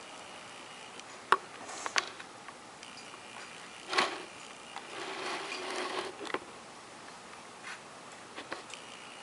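Handling of toy parts and packaging: a few sharp plastic clicks, the loudest about four seconds in, then a second or so of rustling and a few small ticks.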